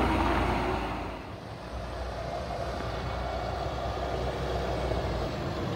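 Automated side-loading garbage truck's diesel engine running, loud and close at first, then dropping to a quieter, steady rumble about a second in as the truck moves along.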